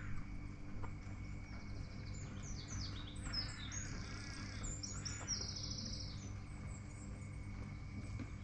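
Songbirds chirping and singing, with fast rattling trills in the middle, over a low steady hum.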